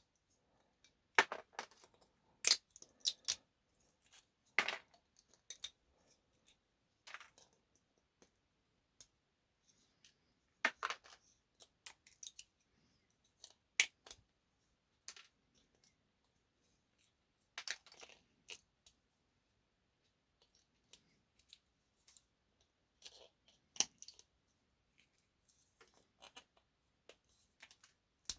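Pliers snapping the printed support bits off a 3D-printed model tank: irregular sharp plastic clicks and small snaps, some in quick little clusters, with short pauses between.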